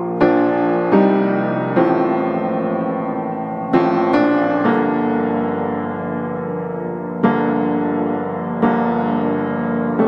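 Background piano music: slow, unhurried chords and notes struck every second or so, each ringing on and fading.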